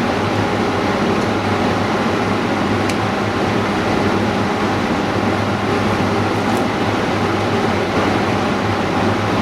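Steady machine hum and hiss, with low hum tones and a constant whine, and a faint tick about three seconds in and another near seven seconds.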